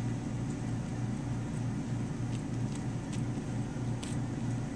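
Steady low mechanical hum with a few faint, light clicks between about two and four seconds in.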